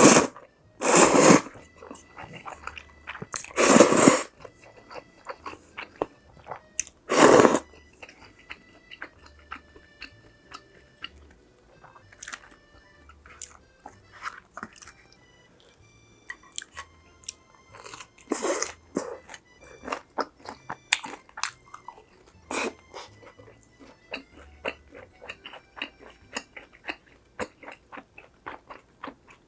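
Close-miked biting and chewing of crunchy food: several loud crunching bites a few seconds apart, with smaller crunches and mouth clicks between them. Quiet background music runs underneath.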